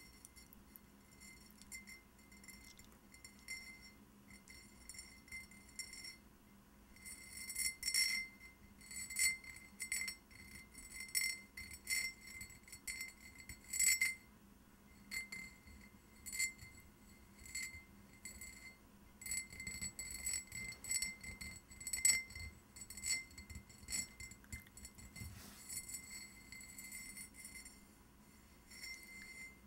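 Fingernails scratching and tapping a glazed vase in short strokes, each with a faint glassy ring. The strokes are light at first and get firmer and closer together from about seven seconds in.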